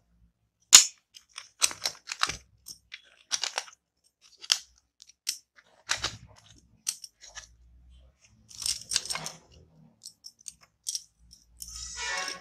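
Taparia precision screwdrivers and their orange plastic tray clicking and knocking together as they are handled: a string of sharp clicks, the loudest about a second in, with a short scrape near the end.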